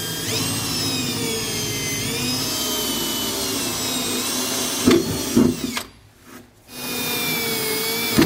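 Cordless drill with a small bit drilling pilot holes through the truck bed floor, its motor whine shifting in pitch as the bit cuts, with a couple of knocks about five seconds in. The drill stops briefly about six seconds in, then runs again.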